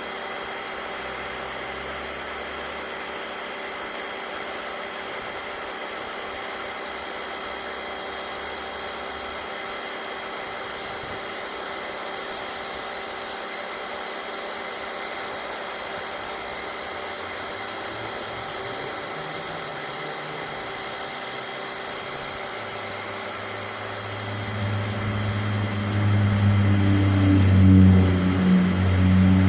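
SunJoe electric pressure washer spraying concrete through a 15-degree tip: a steady hiss with a few steady whining tones. About 24 seconds in, a much louder, deeper motor hum comes in.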